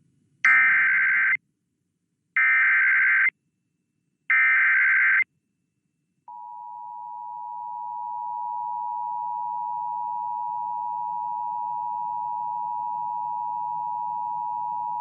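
Emergency Alert System data header: three short screeching bursts of digital data, each about a second long, with a second's pause between them. About six seconds in comes the EAS attention signal, a steady two-tone electronic sound that swells over a couple of seconds and then holds. Together they announce the start of a broadcast emergency alert.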